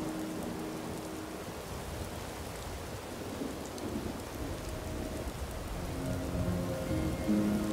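Steady outdoor winter-weather noise: an even rain-like hiss over a low rumble, with a few faint steady tones coming in over the last couple of seconds.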